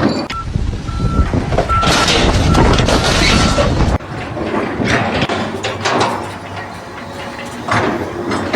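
A heavy vehicle's reversing alarm beeping at a steady pace, about two beeps a second, over loud engine noise. It cuts off suddenly about four seconds in, and a quieter scene with voices follows.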